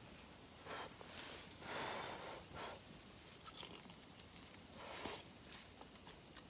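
A person eating hot food: a handful of short breathy puffs and sniffs while chewing, with a few faint light clicks.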